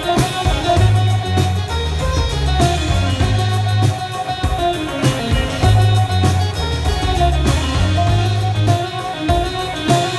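Live band music: an amplified keyboard solo over a bass line that moves in held low notes, with drums keeping time.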